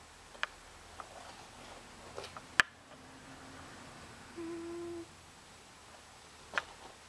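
Cat snoring: on one breath it gives a steady, single-pitched tone for under a second, about four and a half seconds in, over fainter breathing. The owner is unsure whether this is a harmless snore or a wheeze. A sharp click about two and a half seconds in is the loudest sound, with a few fainter clicks around it.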